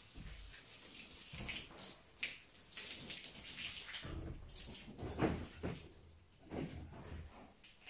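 Water from a garden hose spraying and splashing onto a horse's legs and a wet concrete floor, dying away about halfway through as the hose is shut off. A few low knocks and scuffs follow.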